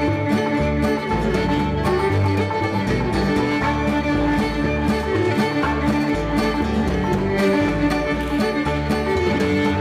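Live string band playing a fiddle-led contra dance tune with a steady beat, an upright bass underneath.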